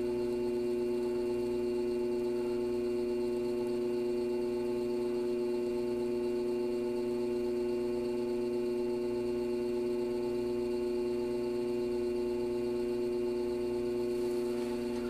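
Electric pottery wheel motor running at a constant speed: an even, steady hum made of several held tones.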